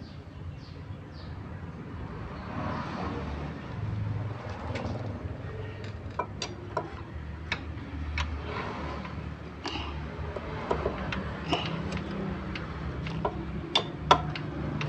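Scattered sharp metal clinks and taps as a steel bar is worked against a Yamaha Mio Soul scooter's new cooling fan and its bolts, holding the fan still while its nut is tightened. The loudest clinks come near the end, over a low hum.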